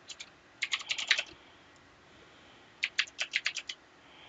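Typing on a computer keyboard: two quick runs of keystrokes, the second starting just under three seconds in.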